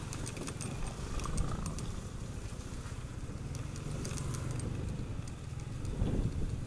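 Yamaha NMAX scooter running while being ridden over a broken, rough road, with frequent small clicks and knocks as the scooter jolts over the surface.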